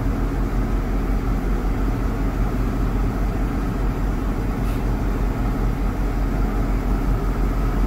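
JCB Fastrac tractor's diesel engine running steadily, heard from inside the cab as it drives through floodwater.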